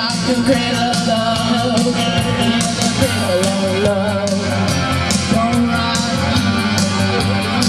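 A woman singing a rock song into a microphone over loud amplified rock backing with drums and bass, the cymbal strokes keeping a steady beat.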